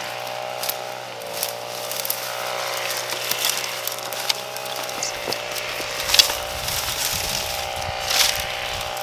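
A small motor or engine running steadily with a slightly wavering hum, with scattered knocks and clicks of hand work over it, the sharpest about six and eight seconds in.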